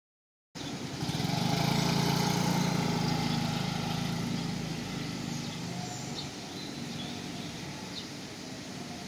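Small motorcycle engine running as the bike rides through a raised barrier gate, loudest early on and slowly fading as it moves away, with a few faint bird chirps.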